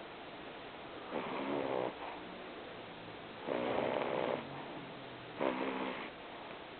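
A sleeping pet snoring: three snores, each under a second long, about two seconds apart.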